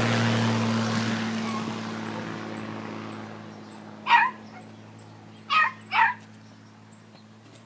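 An Eagle crop-duster's engine noise fading away as the low-flying plane passes overhead and recedes. About four seconds in, a pet animal gives three short, high cries, the last two close together.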